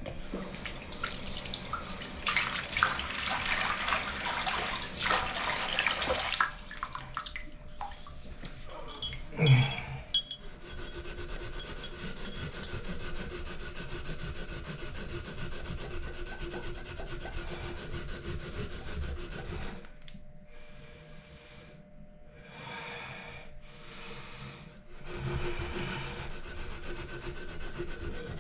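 Scotch-Brite pad scrubbing the corroded end of a faucet spout, loudest in the first six seconds and then lighter in spells, cleaning off corrosion left by the aerator. A single knock about nine seconds in.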